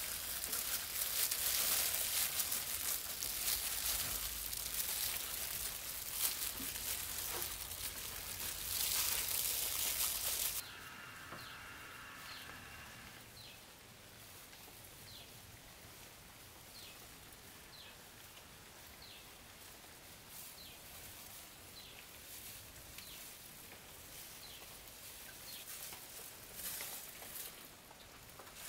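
A loud steady hiss that cuts off abruptly about ten seconds in. Then comes a quieter background in which a small bird gives short high chirps about once a second.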